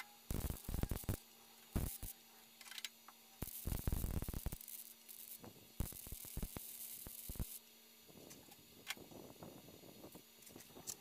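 MIG welder laying short stop-and-start welds on a steel car body panel: bursts of arc crackle, some a second or two long, over a steady low hum. The bursts stop about seven and a half seconds in, leaving a fainter crackle.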